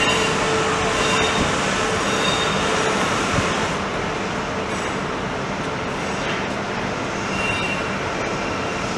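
Double-deck electric multiple unit, an SJ X40 (Alstom Coradia Duplex), rolling slowly along the station tracks. The wheels and rails rumble steadily, with short high wheel squeals now and then and a single click about three seconds in.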